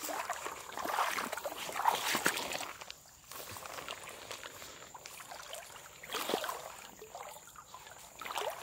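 Footsteps wading through shallow swamp water and tall grass: sloshing and rustling in uneven bursts, busiest in the first three seconds, with a few more steps later on.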